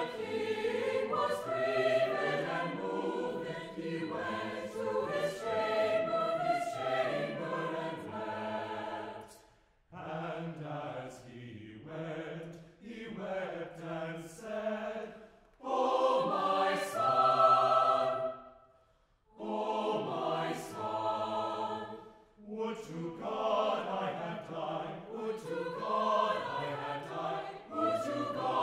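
Mixed chamber choir singing, in phrases that break off briefly a few times.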